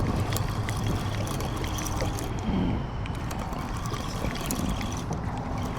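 Steady wash of water around a boat, with a low hum underneath and faint scattered ticks.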